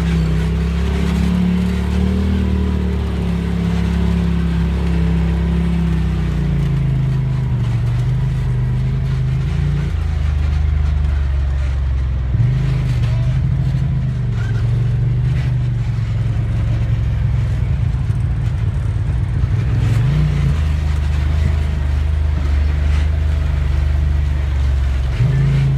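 Polaris RZR side-by-side engine running steadily at low speed on an off-road trail. Its pitch drops and rises several times as the throttle is let off and opened again.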